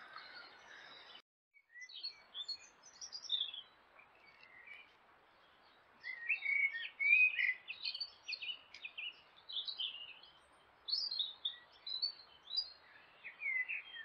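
Wild songbirds singing in a woodland, with quick high chirps and trills coming in clusters. About a second in, a steady hiss cuts out briefly before the birdsong starts.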